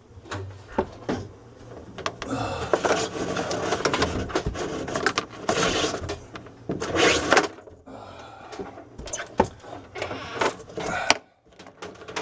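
Handling noise as plastic water-supply tubing for a refrigerator ice maker is pulled through a hole in the cabinet: scattered clicks, knocks and small clinks with stretches of rustling.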